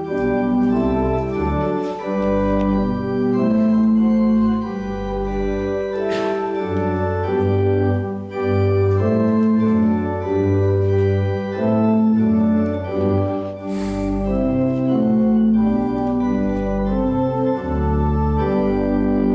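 Church organ playing slow, held chords over a deep pedal bass, the chords changing every second or so.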